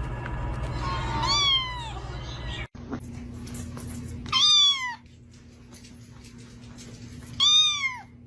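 Cat meowing three times, each meow rising and then falling in pitch; the first comes about a second in over a low rumble, the others near the middle and near the end.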